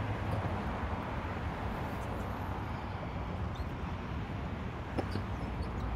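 Steady outdoor city ambience on a busy bridge walkway: a low rumble under a constant hiss, with a few faint, brief high chirps and a click.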